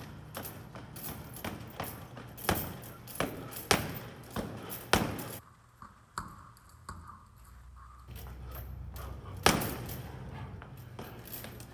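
Boxing gloves striking a hanging Title Boxing heavy bag in irregular punches, sharp slaps and thuds, with the bag's chain jingling. There is a lull in the middle, then one hard punch, the loudest hit.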